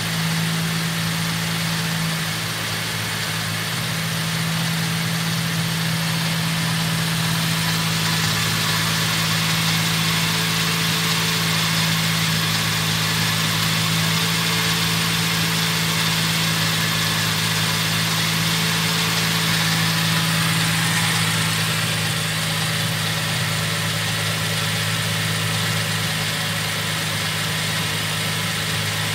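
2005 Holden Commodore's 3.6-litre Alloytec V6 idling steadily, heard close over the open engine bay.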